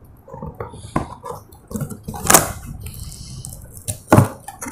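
A cardboard box insert being handled by hand: a few sharp knocks and scrapes, the loudest about two seconds in and another about four seconds in.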